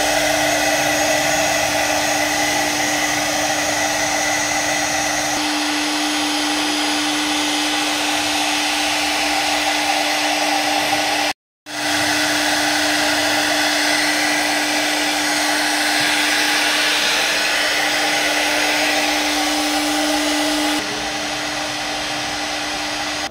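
3.5 kW CNC router spindle running free at 18,000 RPM: a steady whir with one held tone over a hiss. It cuts out for an instant about halfway through and runs quieter near the end.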